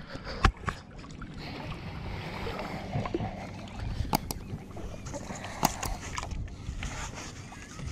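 Bay water sloshing and lapping right at the microphone as someone wades waist-deep, with a few sharp clicks scattered through.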